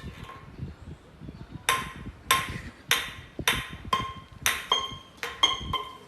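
About ten sharp taps on a hard object that rings briefly after each, as if metal or glass is being struck, at first about twice a second and then coming quicker near the end.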